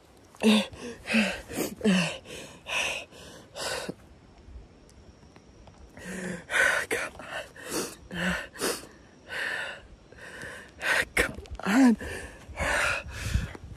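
A man gasping and panting in quick, ragged breaths, some with a short voiced catch, in two runs with a pause of about two seconds between them. The breathing goes with visible distress.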